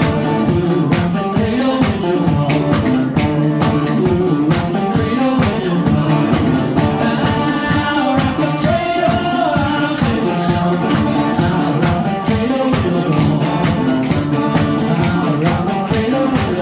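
Live string band playing: a resonator guitar with accompanying instruments over a steady kick-drum beat.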